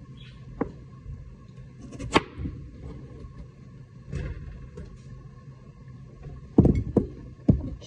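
Kitchen knife cutting through peeled potatoes and knocking on the cutting board: a few sharp knocks spread apart, with a quick cluster of louder ones near the end, over a faint steady hum.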